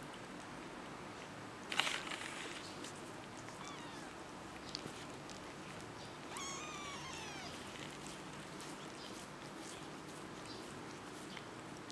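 Kitten mewing: thin, high mews that fall in pitch, a faint one about four seconds in and a clearer one about six seconds in. A short, sharp sound about two seconds in is the loudest thing.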